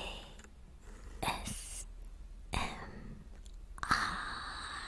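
A woman whispering close to the microphone: four short breathy whispers about a second apart, the letters A, S, M, R spoken one at a time, the last one drawn out.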